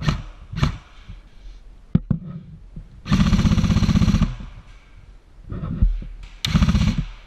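Airsoft rifle firing full-auto: a rapid, even rattle of shots lasting about a second, starting about three seconds in, then a shorter burst near the end. A few single knocks come before them.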